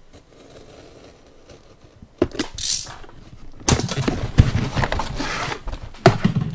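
Cardboard box of a radio-controlled truck kit being opened: a sharp click about two seconds in and a brief scrape, then a few seconds of rustling, scraping and light knocks as the lid comes off and the packed contents are handled.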